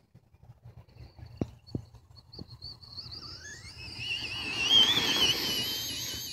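Traxxas Rustler VXL RC truck's brushless electric motor whining as the truck speeds up: a high whine that climbs in pitch from about three seconds in and wavers while at full speed, loudest around five seconds in. Three short knocks come before it.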